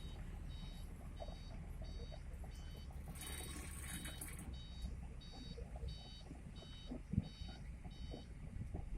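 Heavy construction machine's backup alarm beeping at an even pace, about three beeps every two seconds, over a low diesel engine rumble. A burst of hiss comes about three seconds in and lasts just over a second.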